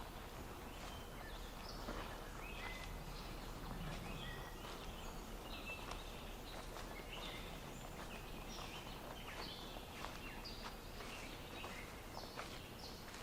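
Several small birds chirping and calling, short whistled notes that overlap and repeat, over a low steady outdoor hiss.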